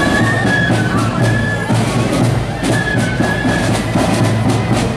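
Marching flute band playing a tune: high flutes carry the melody over steady drum beats.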